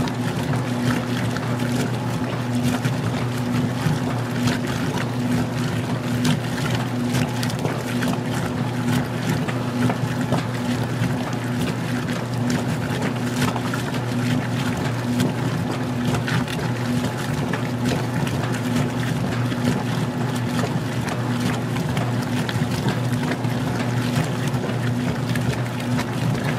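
Magic Chef 20-pound washer in its wash agitation. The motor hums steadily while water and a small load of clothes slosh and splash in the tub.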